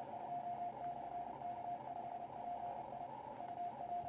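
Morse code (CW) from a Yaesu FTDX101MP receiver's speaker: a single steady mid-pitched tone keyed on and off in dots and dashes, over narrow-filtered band hiss. It is the DX station PJ2/K5PI sending its call, which ends with JA, meaning it is calling for Japanese stations only.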